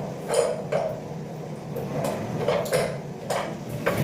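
A few short clanks and scrapes, about five in all, of tools working on a water heater's metal valve and pipe fittings.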